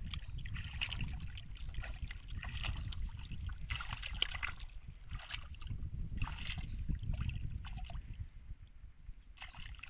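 Hands splashing and sloshing in shallow muddy water while groping in the mud for fish, in short splashes every second or so over a steady low rumble.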